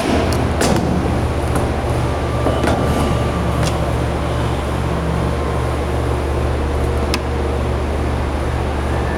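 Steady, loud low machinery drone in a brewhouse, with a few short scrapes and knocks as a long-handled rake drags wet spent grain from the mash tun's steel side door into a bin.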